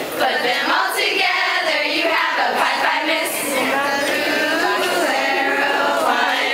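A group of young women singing a sorority song together to the bride, many voices overlapping in a continuous chorus.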